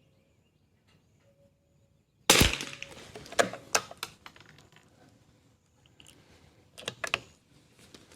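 A single shot from a Kimber 82G bolt-action .22 rimfire target rifle about two seconds in, followed by several sharp metallic clicks of the bolt being worked to eject the case and load the next round.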